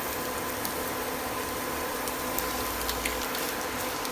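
Egg and grated beetroot frying in a pan with a steady sizzling hiss, with a few light taps of a wooden spatula against the pan as the egg is stirred in.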